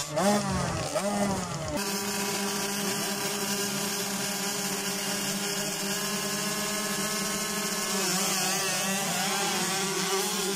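Several small youth motocross bikes revving at the starting gate, throttles blipped up and down at first, then held at a steady high-revving pitch. Near the end the pitch wavers as the bikes launch off the line.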